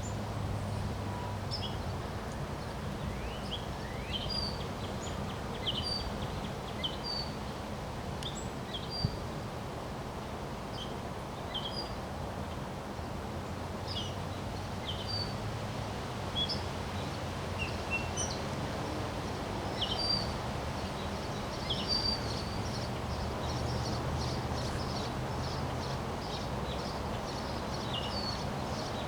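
Wind rumbling on the microphone while small birds chirp, short high calls every second or so, with a quicker run of high notes near the end.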